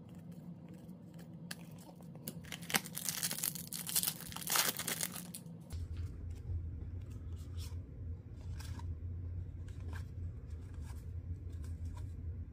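Glossy trading cards being flipped and slid against one another in the hands: a papery rustle and scrape, busiest in the first half. A steady low hum comes in about halfway through.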